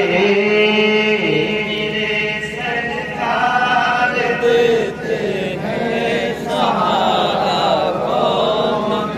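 A man singing an unaccompanied Urdu naat into a microphone, drawing out long notes that waver and bend, with a brief break about five seconds in.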